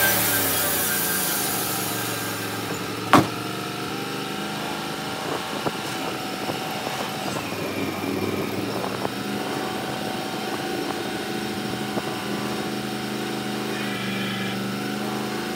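Portable bandsaw sawmill's engine running steadily as the saw head travels back along the track after a cut through a walnut log; the blade's cutting hiss dies away over the first couple of seconds. A single sharp clack about three seconds in is the loudest sound, with a few light ticks later.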